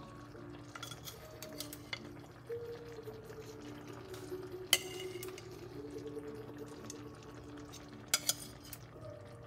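Metal kitchen tongs clicking and scraping against a ceramic plate and pan as chicken breasts are lifted off the plate. There are a few sharp clinks, the loudest about halfway through and a quick pair near the end.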